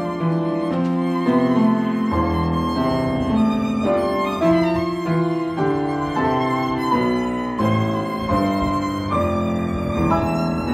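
Violin playing a melody with grand piano accompaniment, the notes held and changing about every half second to a second.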